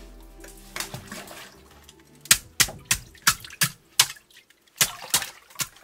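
River ice being chipped with a pointed metal tool in a plastic barrel of water: a run of sharp strikes, about three a second, starting a couple of seconds in, with water sloshing around the ice.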